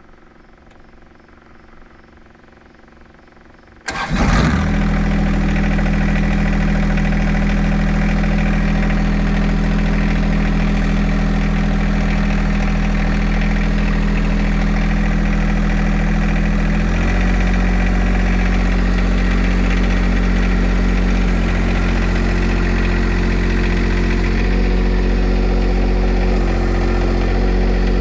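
John Deere 2025R's three-cylinder diesel engine starting about four seconds in, with a brief crank before it catches, then running steadily. Its engine note shifts in a step about 17 seconds in and changes slightly a few more times near the end.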